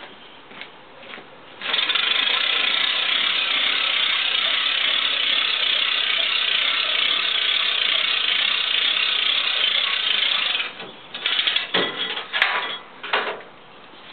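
Hand crank at the front of a tilting motorcycle trailer being wound: a steady ratcheting mechanical clatter that starts suddenly and lasts about nine seconds, followed by a few separate clanks near the end.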